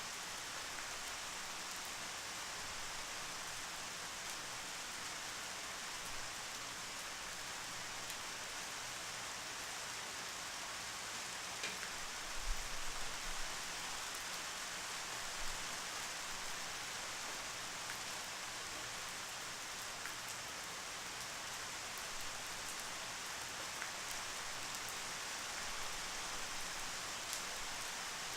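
Steady rain falling on a surface, an even hiss with scattered individual drops. A brief low bump comes about halfway through.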